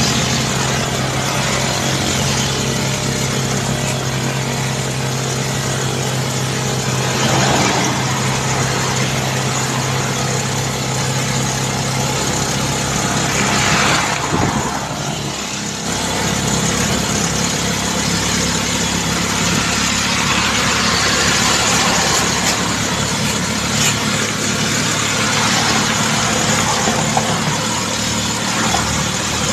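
Motorcycle engine running steadily at cruising speed under wind and road noise. About halfway through a rising-then-falling whoosh sweeps by.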